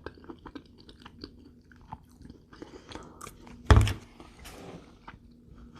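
Close-up chewing of brisket mac and cheese, with many small wet mouth clicks. One loud thump a little past halfway.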